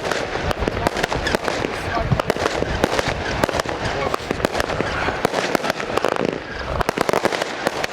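Fireworks going off in a dense, continuous barrage: many rapid bangs and crackles overlapping throughout.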